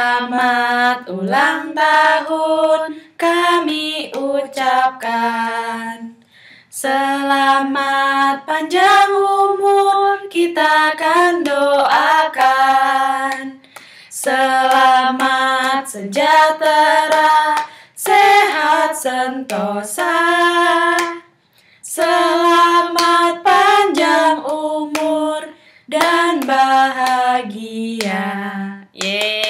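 Women singing a song together without accompaniment, in sung phrases with short breaks between them.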